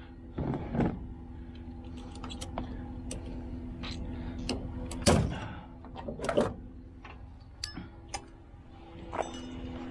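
Scattered knocks and clunks of gear being handled, the loudest about five and six seconds in, over a steady hum of swarming mosquitoes.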